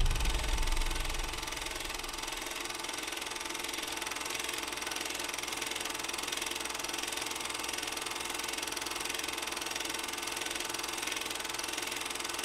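Steady droning hiss with faint humming tones, a sound-effect bed under an animated title card. A deeper low rumble fades away over the first second.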